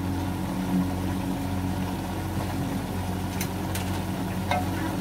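Steady low mechanical hum, with a few light clicks about three and a half to four and a half seconds in.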